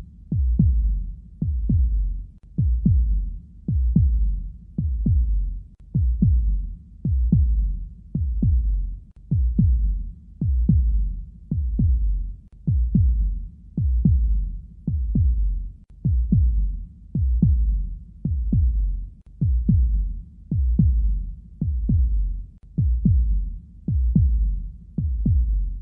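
Heartbeat sound effect: a steady, slow lub-dub, each beat a pair of deep, low thumps, repeating about once a second.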